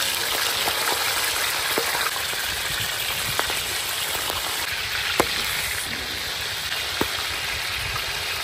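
Fish steaks sizzling in hot mustard oil on a large flat tawa as they are laid in to fry: a steady hiss with a few sharp pops and spits.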